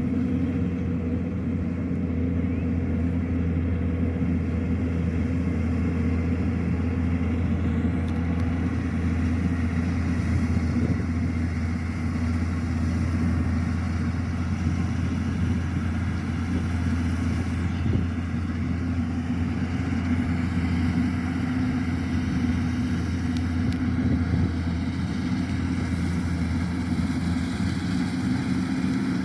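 Kubota DC-105X rice combine harvester's diesel engine and machinery running steadily at a constant pitch.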